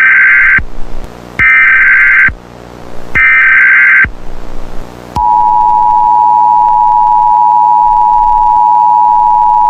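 Emergency Alert System signal: three short, loud bursts of screechy SAME data-header tones about a second apart, then, about five seconds in, the steady two-tone EAS attention signal, which marks the start of an emergency alert broadcast.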